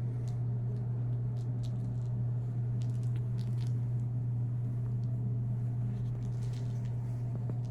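Room air conditioner running with a steady low hum, with faint scattered clicks over it.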